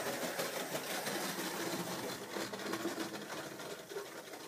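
Small model railway locomotive running along the track, its motor and wheels making a steady rattling hum that fades slowly as it slows down. The loco runs jerkily.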